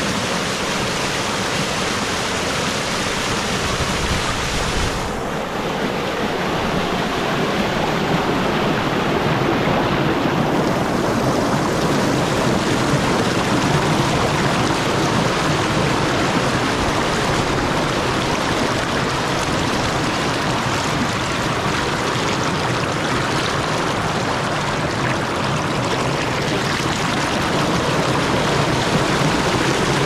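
A rocky creek rushing and splashing over boulders in a small cascade: a steady, loud rush of water that grows a little fuller about five seconds in.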